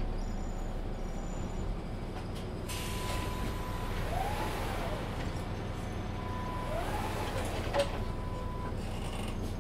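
Mercedes-Benz Citaro C2 Ü Hybrid city bus running with a low steady hum. A long hiss of air sets in about three seconds in. Over it come a high steady beep twice, two brief rising-and-falling whines, and a sharp click near the end.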